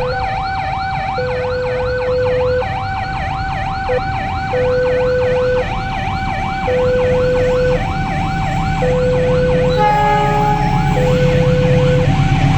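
Electronic warning siren of a railway level crossing: two steady tones take turns about every second, under fast repeating whoops. About ten seconds in a short chord-like horn blast sounds, and a low rumble builds toward the end.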